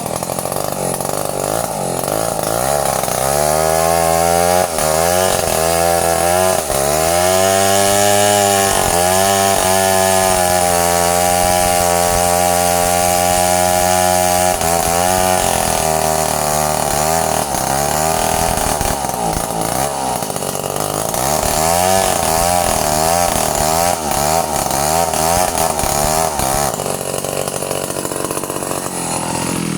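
Stihl two-stroke chainsaw running at high revs. Its engine pitch sags and recovers over and over, as when the chain bites into wood. Near the end it drops back to a lower, unsteady running.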